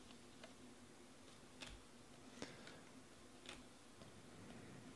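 Faint, irregular clicks of a stack of 2019 Panini Elite Extra Edition baseball cards being flipped through by hand, their edges snapping as each card is moved to the back.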